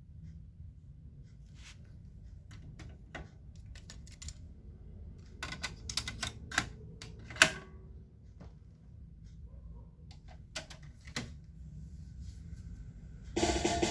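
Scattered sharp clicks and clacks over a low hum, from handling a Kenwood X-99 stereo cassette deck's controls and tape mechanism, with a cluster about halfway through; music from the tape starts just before the end.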